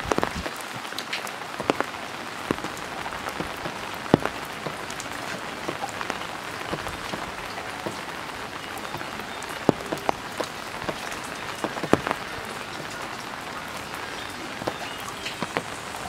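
Steady rain falling, an even hiss with scattered sharper taps of individual drops.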